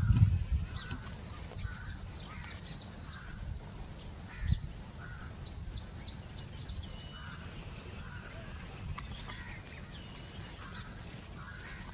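Baya weavers chattering: quick runs of short, high chirps every few seconds, with now and then a short falling whistle, over a low rumble and one dull thump about four and a half seconds in.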